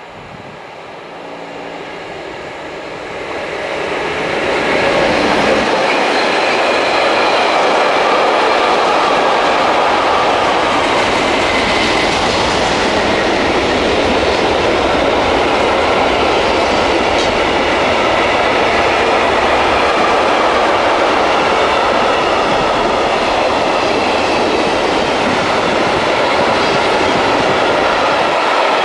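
DB Class 145 electric locomotive hauling a container freight train, growing steadily louder over the first four to five seconds as it approaches, then a long steady rush of container wagons rolling past on the rails.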